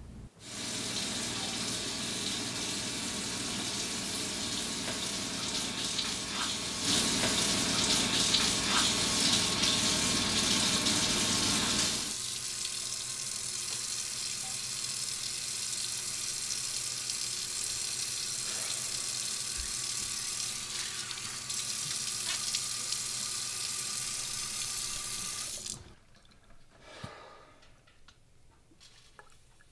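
Kitchen sink faucet running, the stream splashing over a knife being scrubbed with a brush beneath it. The rush grows louder for about five seconds in the middle, then the tap is shut off abruptly near the end.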